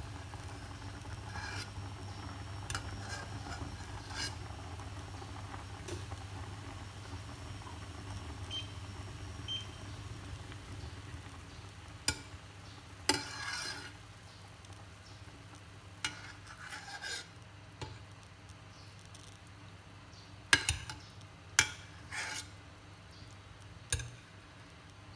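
Soup bubbling at a boil in a stainless steel pot while a metal spoon skims off the foam and fat, with several sharp clinks of the spoon against the pot, most of them in the second half.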